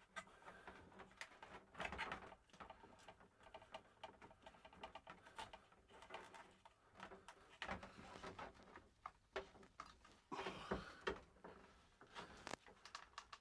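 Faint, scattered clicks, taps and rustles of hands handling plastic shower-faucet parts and fitting them back into place.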